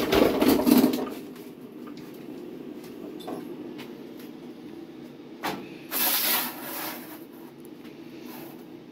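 Sheet steel being trimmed with a metal-cutting tool: a loud burst of cutting at the start lasting about a second, a click, and a second shorter burst about six seconds in, over a steady low hum.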